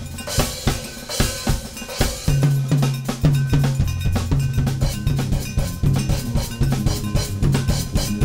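Steel band and drum kit playing together: dense metallic strokes in a steady rhythm over sustained low notes, with a cymbal wash in the first couple of seconds.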